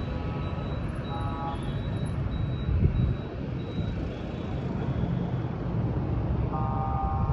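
Steady low engine rumble, with a thin high-pitched whine near the start and again near the end, and one brief louder thump about three seconds in.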